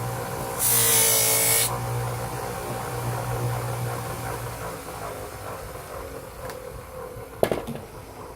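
Buffing grinder with a stitched cotton wheel running, with a loud hiss for about a second as the aluminium piece is pressed into the compound-loaded wheel. The motor hum then stops and the wheel winds down, falling slowly in pitch and level, with a single sharp knock near the end.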